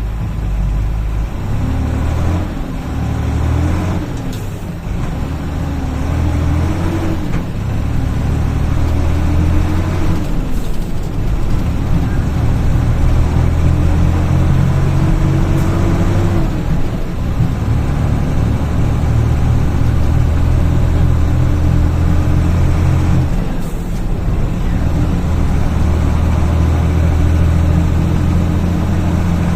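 Mercedes-Benz Eurocar G3 bus engine pulling under load. Its pitch climbs through each gear and drops back at four gear changes, roughly every six seconds.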